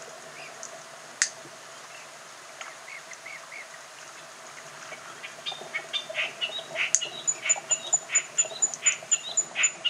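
Blue-cheeked bee-eaters calling: short chirps that start about halfway through and come thick and fast toward the end, over a faint steady background. A sharp click comes about a second in, and a fast run of high ticks, about five a second, fills the last few seconds.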